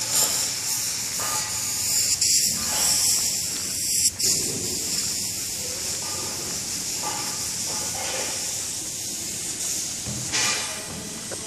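Steady high hiss.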